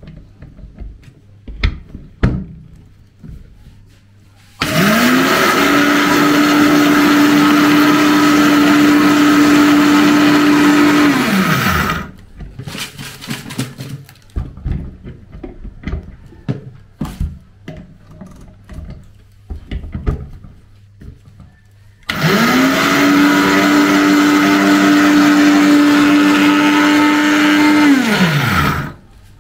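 Countertop blender grinding cocoa into powder, run twice for about six seconds each. Each time the motor spins up quickly to a steady pitch, then winds down when it stops. The batch is too small to blend well. Scattered knocks and clicks come in between the runs.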